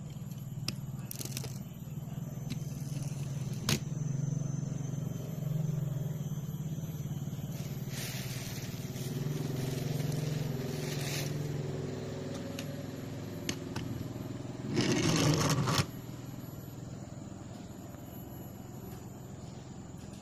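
Small electric motors of remote-control toy construction machines humming steadily, with a few sharp clicks and a loud scraping burst of about a second near the end.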